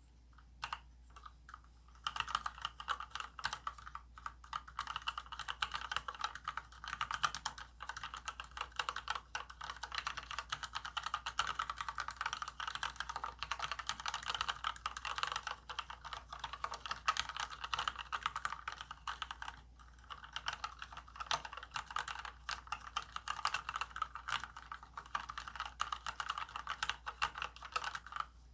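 Typing on a Varmilo VA104M full-size mechanical keyboard with linear Cherry MX Red switches: a few single key presses, then fast continuous clacking of keys, with one brief pause about two-thirds of the way through.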